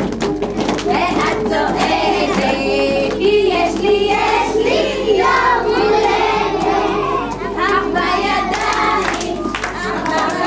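A group of young children and adults singing a song together over music, with scattered hand claps.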